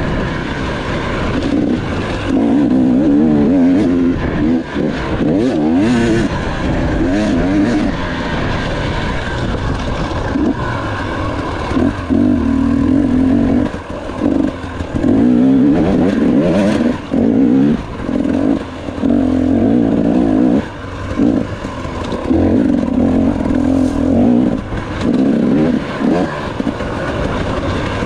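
Off-road dirt bike engine heard from the rider's camera at race pace, its revs rising and falling as the throttle is opened and briefly shut again every few seconds. A few sharp knocks cut through the engine.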